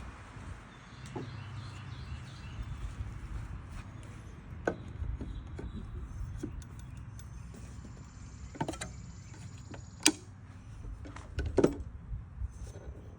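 Scattered sharp clicks and knocks of hand work with tools and metal parts on a motorcycle's rear docking hardware, a few seconds apart, over a low steady hum.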